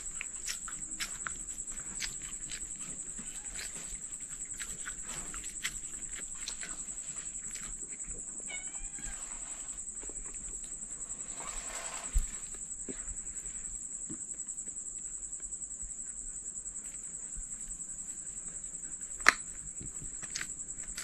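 Quiet eating by hand: fingers picking through rice and fried fish on a plate, with small clicks. One louder knock comes about twelve seconds in and a sharp click near the end, over a steady high-pitched drone.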